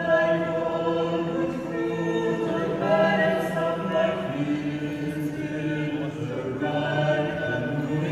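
Choir singing a cappella, several voice parts holding chords that change every second or two.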